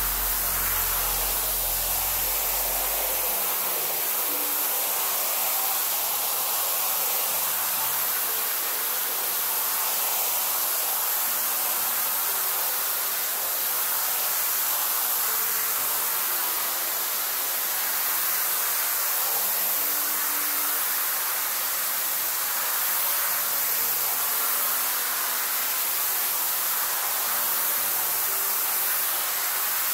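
Pressure-washer wand jetting water onto a soaked rug: a steady hiss of spray.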